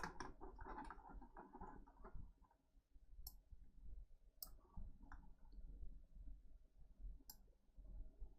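Faint handling noise from a small plastic electronic device being worked on by hand. Three sharp, light clicks follow, about three, four and a half, and seven seconds in.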